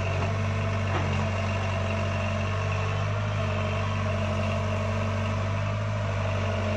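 Diesel engine of a Sumitomo S160 tracked excavator running steadily with an even, low hum.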